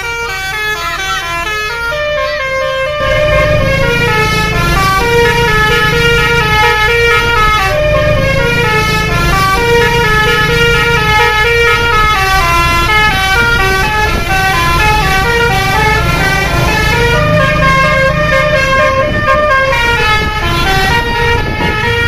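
A tour bus's telolet horn, a set of tuned multi-tone air horns, playing a tune of short stepped notes one after another, louder from about three seconds in, with the bus's engine running underneath.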